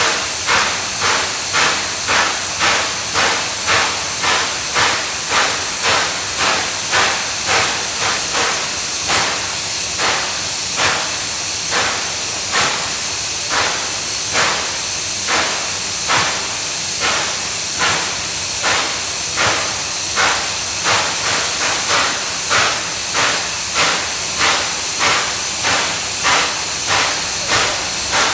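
Steam locomotive giving off steam in a steady, even rhythm of puffs, about one and a half to two a second, over a continuous hiss.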